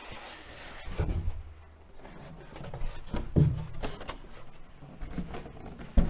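Polystyrene foam packing insert being lifted out of a large cardboard box, with rubbing and scraping of foam against cardboard. Several dull knocks as it is handled and set down.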